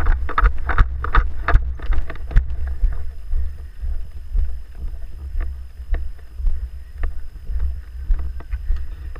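Steady low rumble on the microphone, with a quick run of sharp clicks or snaps over the first couple of seconds, then only a few scattered ones.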